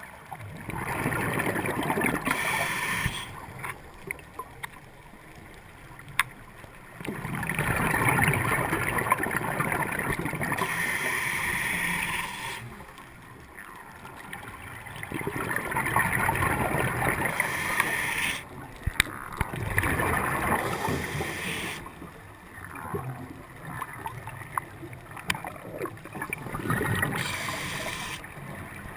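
A scuba diver breathing through a regulator: long rushing, bubbling bursts of exhaled air every few seconds, with quieter spells between breaths and a few sharp clicks.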